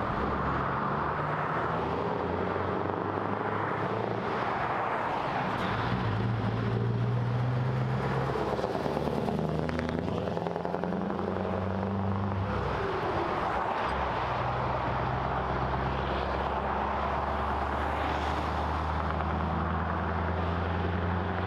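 Vehicle driving at motorway speed: a steady engine drone over road and wind noise, the engine note shifting in pitch a few times.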